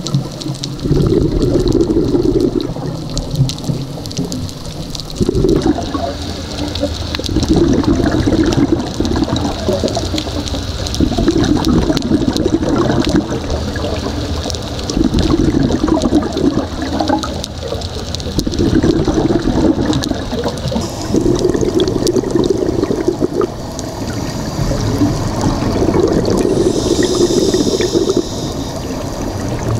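Scuba regulator breathing underwater: a burst of exhaled bubbles gurgling every few seconds, with quieter stretches between breaths.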